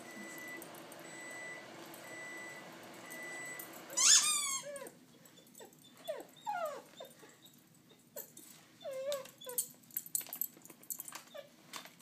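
Dog whining: one loud, high whine falling steeply in pitch about four seconds in, then a string of shorter, quieter whimpers.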